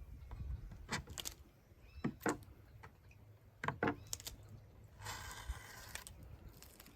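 Hands working on a drum shell: a few light, separate clicks and knocks, then a short rustling scrape about five seconds in.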